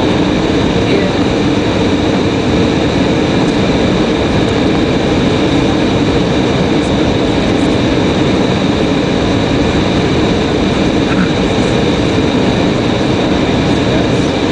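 Airliner cabin noise on final approach: the jet engine just outside the window and the rushing airflow, a loud steady din with a constant whine running through it.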